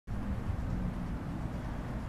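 Low, steady rumble of an approaching coach's diesel engine.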